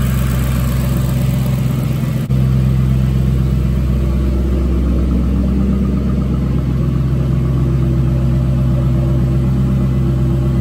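A 2008 Mustang GT California Special's 4.6-litre three-valve V8 idling steadily after a cold start, through Pypes axle-back mufflers. About two seconds in there is a cut, after which the idle is deeper and a little louder.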